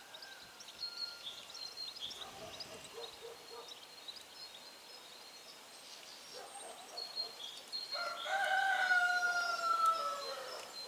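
A rooster crows once about eight seconds in, a long call that holds and then falls in pitch at its end, over the steady chirping of small birds.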